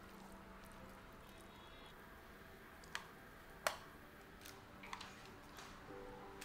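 Metal kitchen tongs clicking and tapping against plastic meal-prep containers as food is dropped into them: several light clicks, the sharpest about three and a half seconds in, with soft squishes of food.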